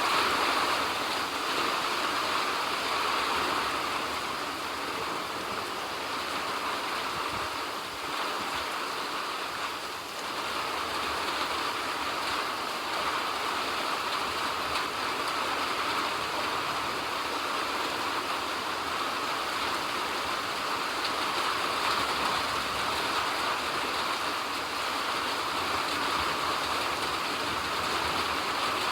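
Steady rain falling, an even unbroken hiss with no separate drops standing out.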